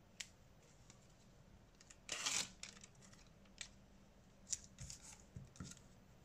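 Small clicks and taps of parts and tools being handled during a smartphone screen repair, with one short tearing sound about two seconds in.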